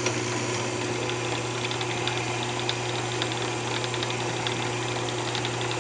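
Wood lathe running steadily with a low hum, a paper towel held against the spinning walnut candlestick to polish it.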